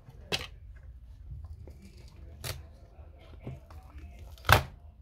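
Sharp clicks and knocks of hand tools and parts being handled during disassembly of an Apple Time Capsule, four distinct strikes with the loudest near the end.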